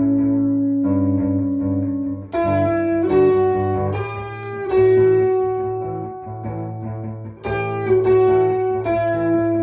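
Ibanez Gio guitar playing held single lead notes, a new note picked every second or so and left to ring, over a steady looped background guitar part. The guitar is freshly set up, with fretwork done and new strings.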